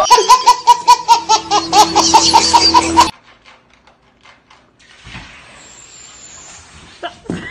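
A baby laughing hard in quick repeated bursts, about five a second, cutting off suddenly about three seconds in. After that there is only faint noise.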